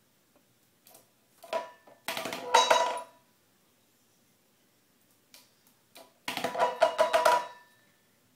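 An empty metal dog water bowl clattering and ringing on a tile floor as a puppy paws and noses it around. There is one short clank, then two longer rattling bouts, the last the loudest. The puppy is signalling that his water has run out.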